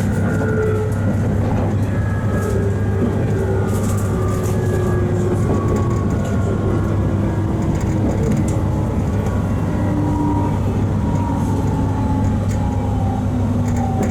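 JR East 719 series electric train running, its motor and gear whine falling slowly in pitch as the train slows, over a steady low hum.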